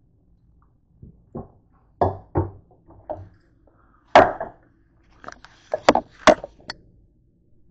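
Kitchen utensil clatter: a metal spoon knocking against a frying pan in a run of irregular knocks, the loudest about four seconds in and two more close together near six seconds.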